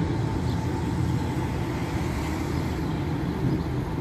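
Steady low rumble of street noise, with a vintage Be 4/4 tram and its trailer rolling away into the distance.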